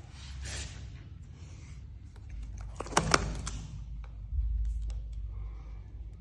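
Close handling noises: scraping and rustling, with two sharp clicks in quick succession about three seconds in.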